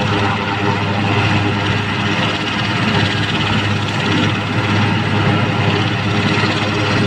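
Large military helicopter running on the ground with its main and tail rotors turning: a loud, steady turbine and rotor noise with a constant low drone.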